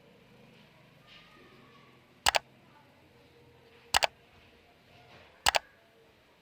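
A table lamp's switch being clicked three times, about a second and a half apart; each press gives a quick double click.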